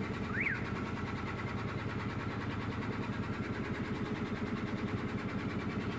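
Tour boat's engine running steadily with a fast, even throb. A short high chirp rises and falls about half a second in.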